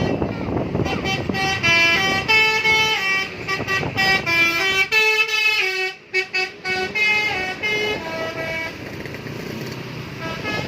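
A bus's multi-tone telolet (basuri) musical horn playing a quick tune of short notes that step up and down in pitch, with a short break about six seconds in, over traffic noise.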